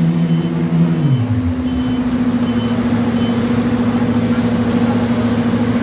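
Heavy road-construction machine's engine running, its revs dropping about a second in and then holding steady, with a reversing alarm beeping at an even pace until about three seconds in.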